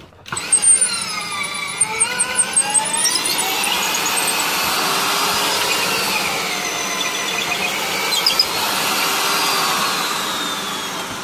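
Half-inch electric drill, not a hammer drill, running under load as a long masonry bit bores through a concrete block wall. The motor whine rises and falls in pitch as the bit bites and frees, and eases off near the end.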